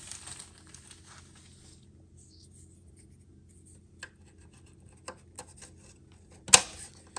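A steel U-nut being slid onto a sheet-metal panel edge by hand: a scraping rub at first, then a few light metal clicks and one sharper click near the end.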